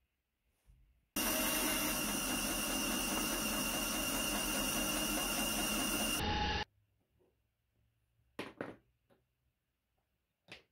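Bandsaw running loudly for about five seconds, starting and cutting off abruptly. A few light knocks of wooden pieces being handled follow near the end.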